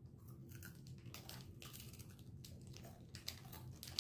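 Faint crunchy chewing of a puffed-rice and marshmallow snack bar, with scattered crackles of its plastic wrapper being handled.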